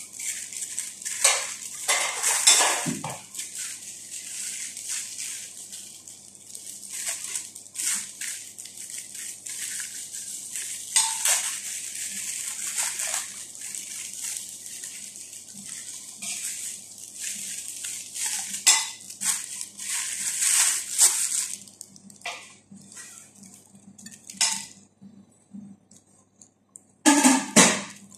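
Thin plastic film crinkling and crackling as it is peeled off and pulled from between raw burger patties, in irregular bursts with short pauses, and a louder rustle near the end.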